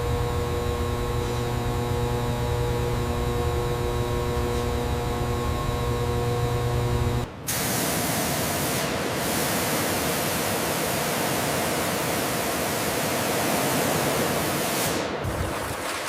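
A steady machinery hum with several fixed tones, which cuts off abruptly about seven seconds in. A steady rushing of wind and sea spray follows.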